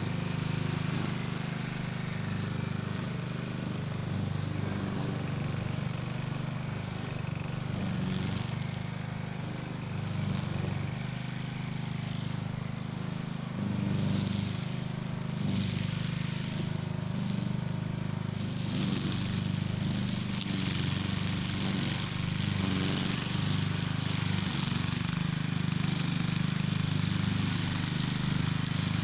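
Cub Cadet walk-behind string trimmer's engine running steadily. The heavy-duty cutting line swishes through weeds in short bursts, mostly in the middle stretch.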